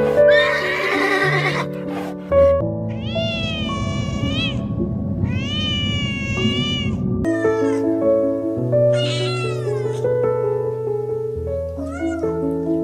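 A domestic cat meowing: several long, drawn-out meows that rise and fall in pitch, over background music. A noisy animal call fills the first second and a half.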